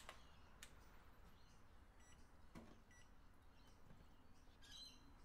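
Near silence, with the microphone turned down: a faint click as a clamp meter's jaws close around a cable, then two short faint beeps from the meter a second apart.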